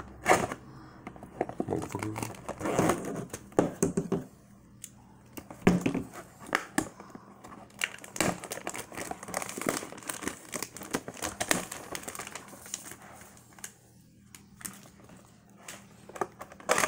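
Clear plastic shrink-wrap being torn and peeled off a cardboard trading-card box, crinkling in irregular bursts of crackles with short pauses.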